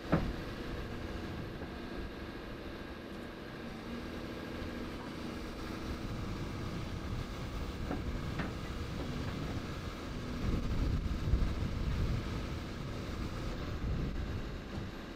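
Cat 326F hydraulic excavator's diesel engine running steadily, with a sharp knock at the very start. The engine and hydraulics swell louder for a couple of seconds past the middle, as the machine works its bucket coupler.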